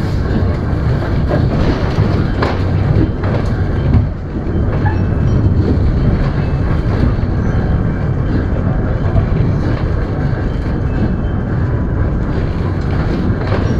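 Kintetsu Nishi-Shigi Cable Line funicular car running down the track with a steady rumble of wheels on rail. A few sharp clicks sound in the first four seconds.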